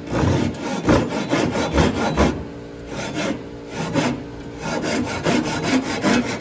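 A double-edged Japanese ryoba handsaw cutting into pine frame stock, with repeated rasping strokes about two a second and a brief pause partway through.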